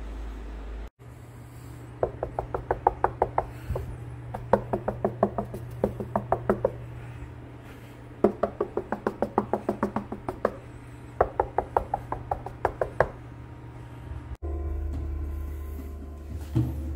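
Knuckles rapping on the side panel of a damped, empty Definitive Technology ProSub 100 subwoofer cabinet in four bursts of quick knocks: a knock test of how much the braced, damped panel still rings. Near the end, the subwoofer plays deep bass.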